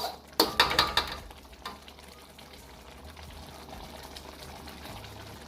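A utensil scraping and clinking against the karahi pan a few times in the first second, then the yogurt curry simmering in the pan with a faint, steady sizzle.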